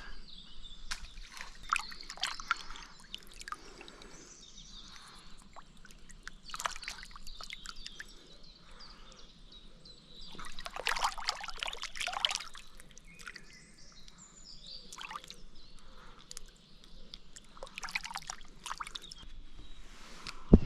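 Pond water sloshing, trickling and dripping in irregular bursts as a freshly gutted pike is handled in it, the loudest splashing about halfway through.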